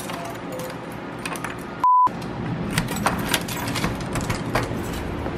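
Keys jingling on a key ring as a key works a door's deadbolt lock, with sharp clicks and jingles about three to four and a half seconds in. A short, steady high beep about two seconds in is the loudest sound.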